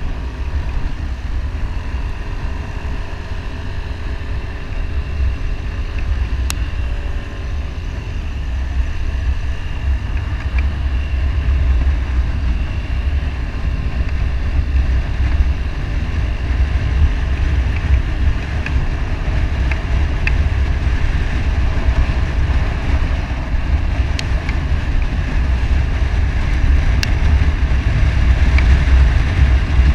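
Motorcycle riding at speed: heavy wind buffeting on the microphone over the steady hum of the bike's engine, with a few faint clicks. The rumble grows slightly louder towards the end.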